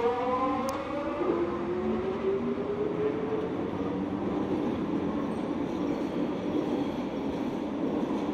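A SkyTrain linear-induction-motor train accelerating: a rising whine with several overtones climbs in pitch over the first two or three seconds and fades. The steady rumble of the train running on the guideway continues after it.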